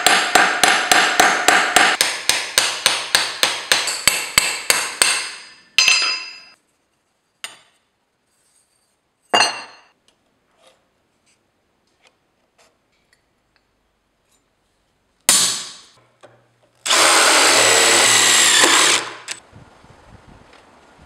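Sheet steel being hammered on a stake: quick ringing hammer blows, about four a second, stopping about five seconds in. A few single knocks follow, and near the end a power tool runs loudly for about two seconds.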